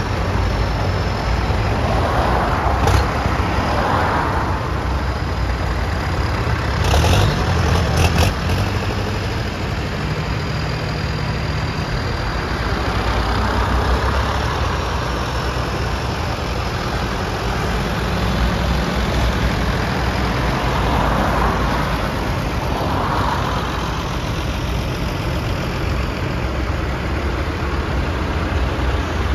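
A procession of tractors drives past one after another, their diesel engines running in a steady drone that swells as each one passes. A few short knocks come a few seconds in.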